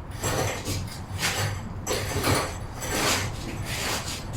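Engine hoist being worked to lift out a Chevy 327 small-block V8: a run of rasping, clanking strokes about two a second over a steady low hum.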